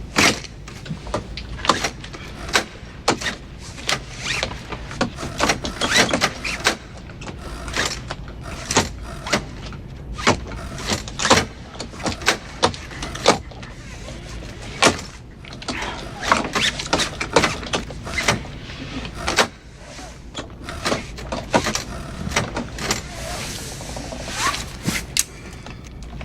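Car seatbelts being pulled and buckled over and over: a long, irregular run of sharp clicks and clunks, a few each second, with an occasional squeak.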